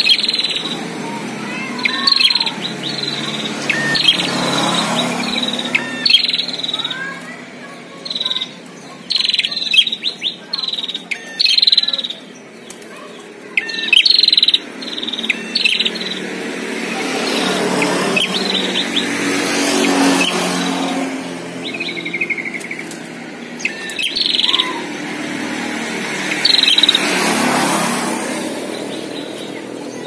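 Prinias (prenjak) calling loudly in repeated bursts of sharp, high chirps, some falling quickly in pitch, with a short trill a little after halfway. This is a caged bird and a wild one calling back and forth at each other, a territorial exchange.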